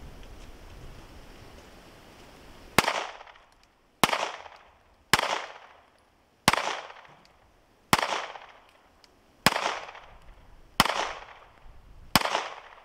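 Pistol fired eight times in slow, even succession, about one shot every one and a half seconds, each shot trailing off briefly in an echo.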